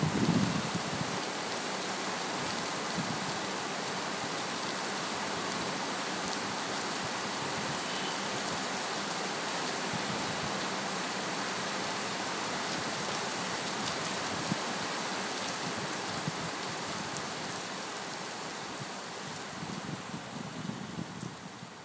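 Heavy rain falling with a steady hiss, with a short low rumble right at the start; the rain fades out gradually over the last few seconds.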